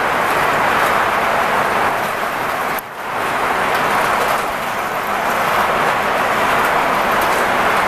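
Metal wheels of an O scale model coal train rolling along the track, a steady rolling rush that dips briefly about three seconds in.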